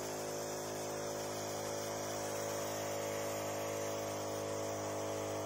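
Battery-powered sprayer running with its 12-volt electric pumps on: a steady electric hum under the hiss of the spray gun's nozzle throwing a fine mist.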